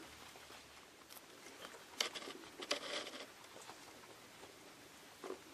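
Guinea pigs moving about, a faint patter and rustle of small feet with a few short sharp clicks about two and three seconds in.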